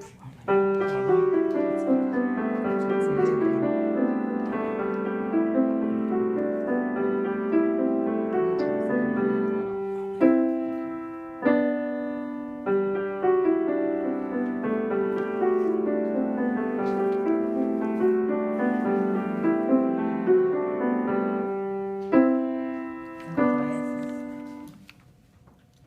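Solo piano piece with chiming, bell-like figures over a long-held low note, punctuated by a few loud struck chords partway through and again near the end, then dying away.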